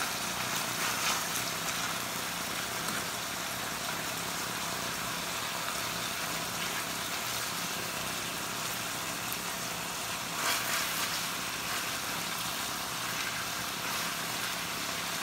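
Steady background hum, with soft handling sounds as raw beef slices and onions are turned over by hand in a metal baking pan; a brief louder rustle about ten seconds in.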